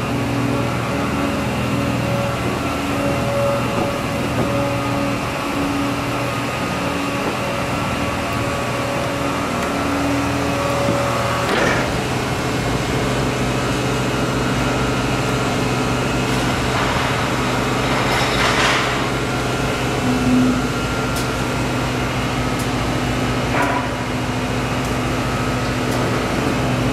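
Steady drone of heavy machinery running, a constant engine-like hum. For the first twelve seconds or so the hum swells and fades in a slow rhythm, then it runs evenly with a low rumble, broken by a few brief metallic clanks.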